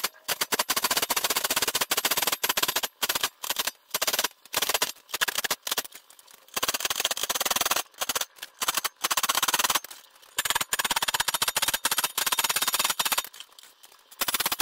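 Saw file rasping across the teeth of a crosscut panel saw clamped in a saw vise: quick short strokes, about two to three a second, in runs with brief pauses, stopping near the end. The teeth are being recut after rejointing, with a well-worn file.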